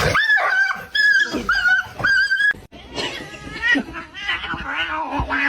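A pet animal's high-pitched whining cries: three held cries in the first couple of seconds, then a run of lower, wavering ones.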